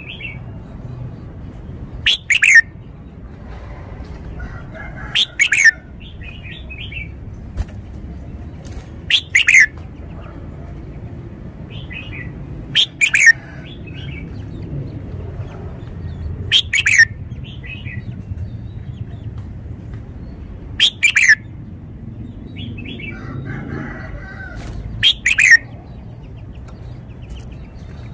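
Caged red-whiskered bulbul singing: seven short, loud song phrases about every four seconds, each made of quick falling notes, with softer chattering notes between them.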